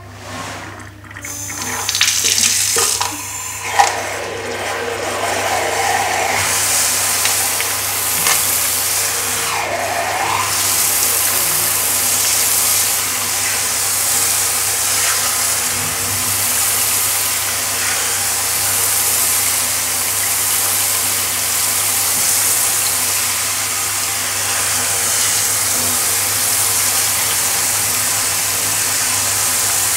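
Water spraying from a handheld pet-bath shower head onto a tiled floor: a steady hiss that comes on about two seconds in and then runs evenly.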